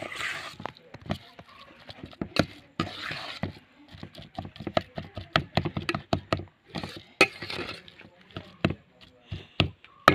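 A spoon stirring a thick sukhiyan filling of cooked green gram, jaggery and coconut in a stainless steel bowl, with frequent irregular clinks and knocks against the bowl and short scrapes.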